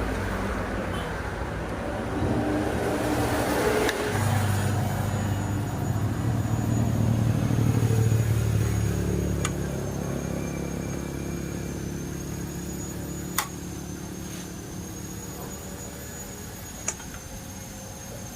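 A motor vehicle engine running, swelling to its loudest a few seconds in and then slowly fading, with a faint steady high whine over it and two sharp clicks near the end.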